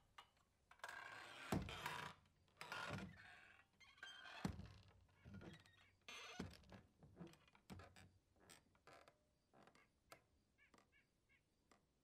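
Saloon-style swinging doors creaking on their hinges and knocking as they swing back and forth. The swings come as a run of creaks and thunks that grow weaker and fade out over the last few seconds.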